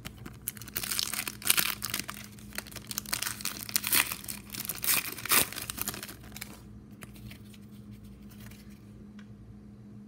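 A trading-card pack's wrapper crinkling and tearing as it is ripped open, a dense crackle for about six seconds. It then dies down to the light handling of cards.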